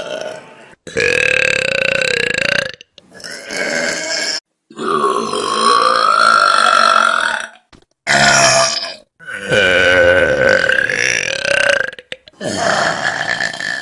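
A run of about six loud, long human burps one after another, each one to three seconds long and mostly held on a steady pitch, with short breaks between them.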